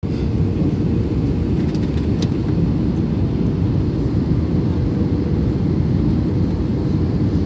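Steady low rumble of airliner cabin noise from a seat over the wing, with jet engines and airflow, on landing approach.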